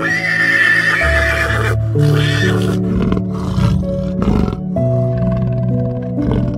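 Background music with long held notes, with a horse whinnying over it in the first second or so. A rough, pulsing animal growl rises through the music around the middle.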